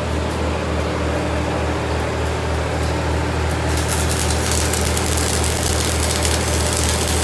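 A large engine runs steadily at idle with a throbbing low hum. A little after halfway, the crackling hiss of an arc-welding electrode joins it.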